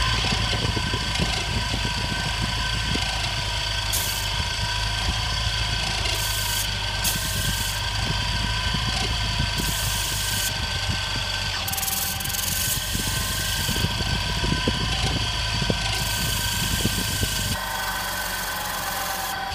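Newen Epoc CNC valve seat machine cutting an exhaust valve seat in a Gas Gas 450 FSE cylinder head: a steady motor whine with several held tones over fine scraping from the cutter, and a higher hiss that comes and goes every second or two. It starts abruptly and cuts off just before the end, as the seat profile is finished.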